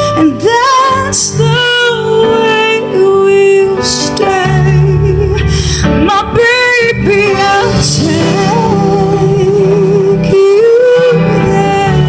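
A woman singing live into a microphone with a band, holding long, wavering notes over keyboard and steady low bass notes.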